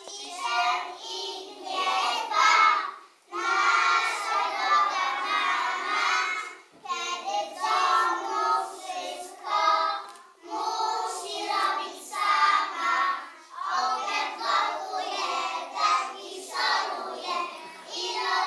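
A group of preschool children singing a song together, in phrases of about three to four seconds with brief pauses between them.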